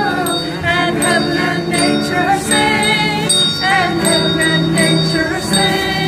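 Background music with jingling bells and a steady beat.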